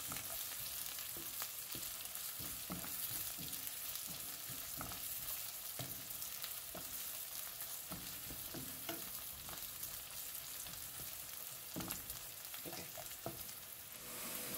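Onion, crushed ginger and chopped garlic sizzling as they sauté in a pan, with a utensil knocking and scraping against the pan now and then as they are stirred.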